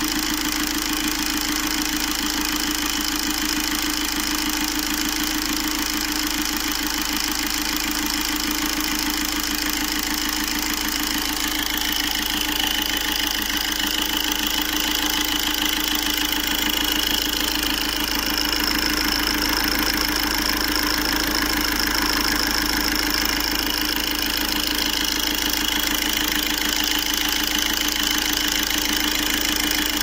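Four-cylinder common-rail diesel engine idling steadily, with a thin high whine coming in about halfway through.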